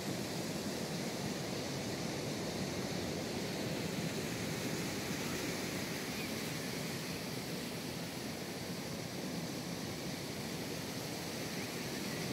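Steady rushing wash of sea surf mixed with wind, an even noise with no distinct events.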